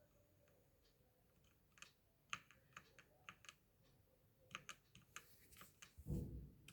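Keys of a wired mechanical keyboard clicking as they are pressed: scattered single clicks from about two seconds in, coming faster near the end. A dull low thump just before the end is the loudest sound.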